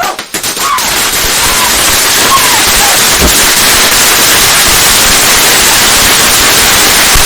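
Indoor firework fountain (a Pikachu novelty firework) spraying sparks with a loud, steady hiss that starts abruptly just after the start.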